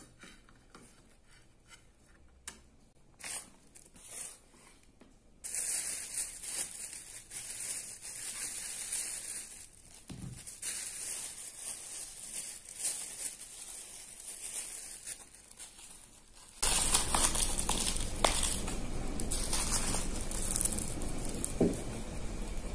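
A plastic bag crinkles and rustles as it is handled and torn open, after a few light clicks of bamboo satay skewers on a plate. About seventeen seconds in, a louder steady hiss sets in abruptly.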